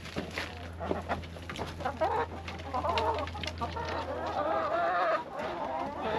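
Chickens clucking, with a drawn-out, wavering hen call building from about two seconds in over scattered small clicks.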